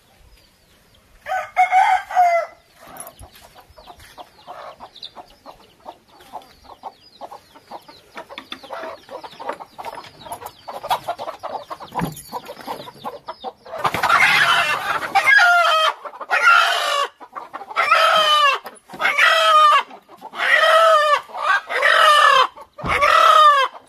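Chickens clucking softly and stirring in a coop, then, from about fourteen seconds in, a desi rooster being caught squawks loudly over and over, about one squawk a second.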